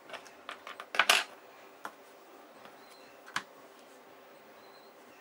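Light clicks and clatter of hard plastic: a phone's plastic housing being handled and plastic pry tools set down on a table. A quick run of clicks, loudest about a second in, then two single clicks a little later.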